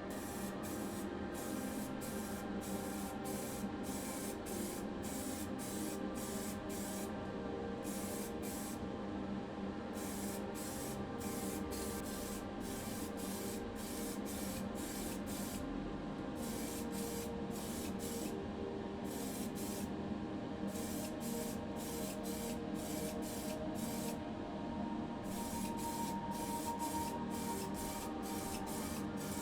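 Paint being sprayed onto a diecast toy body in short hissing bursts, about two a second with a few brief pauses, over a steady hum.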